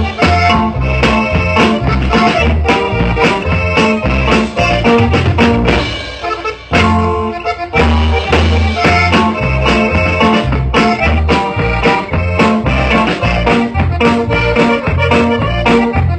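Live band music with accordion, electric guitars and keyboard, over a steady bass beat; the music drops out briefly about six and a half seconds in, then carries on.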